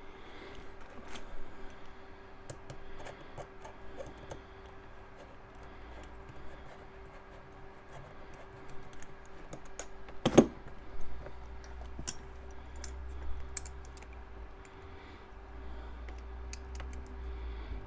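Small metal parts of a titanium folding knife clicking and tapping against each other and the work surface as it is handled and reassembled, with one louder knock about ten seconds in.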